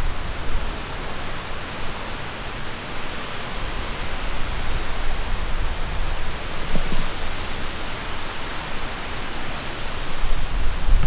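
Thunderstorm wind rushing as a steady hiss. Gusts buffet the microphone with a deep rumble at the start and again near the end.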